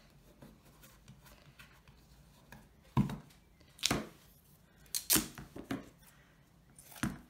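Black adhesive tape being handled and pulled off its roll to tape a greyboard box: a series of short, sharp rips and knocks, about half a dozen, starting about three seconds in.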